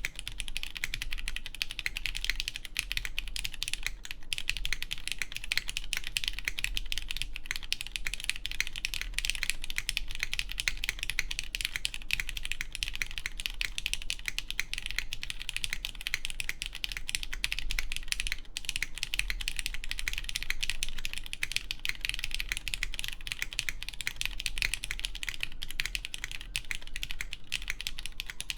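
Continuous fast typing on a plateless mechanical keyboard with lubed, filmed Cherry MX Black Clear Top linear switches: a dense, unbroken run of keystroke clacks.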